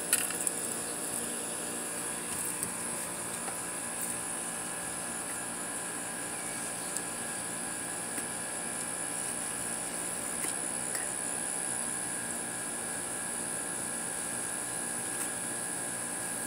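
Steady machine drone with a thin, high steady whine over it, unchanging throughout, with a few faint ticks.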